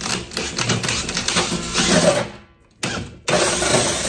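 Cordless DeWalt drill spinning a large hole saw through drywall in three runs with short pauses between. The saw is catching on drywall screws fastened into the stud behind, which break the cut slug into pieces.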